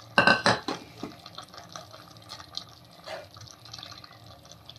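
Kitchen utensils clinking: a quick run of several sharp clinks just after the start, then faint scattered kitchen noise.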